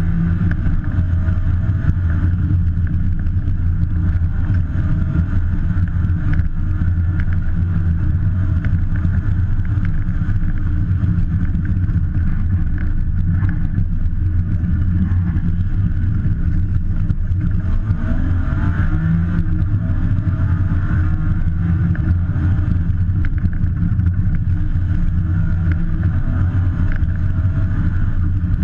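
BMW M3 rally car's engine and drivetrain running at speed, heard from inside the stripped, roll-caged cabin along with road noise. The sound is loud and steady, its pitch rising and falling only slightly.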